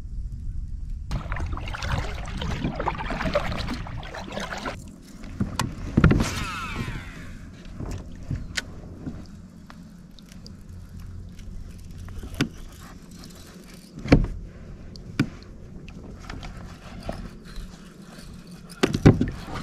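Rustling and scraping of handling on a sit-on-top kayak for the first few seconds, then a low steady hiss broken by a handful of sharp single knocks spaced several seconds apart.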